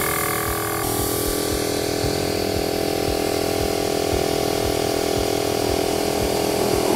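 Viair 450P-RV 12-volt portable air compressor running steadily while it pumps air through its hose into a car tyre. Its tone shifts slightly about a second in, then holds steady.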